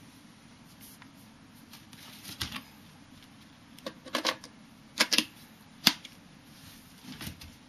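Mechanism of a 1953 Hasselblad 1000F medium-format camera being worked by hand, giving a series of sharp mechanical clicks and clacks. The loudest are a quick pair about five seconds in and a single sharp clack about a second later, with softer clicks before and after.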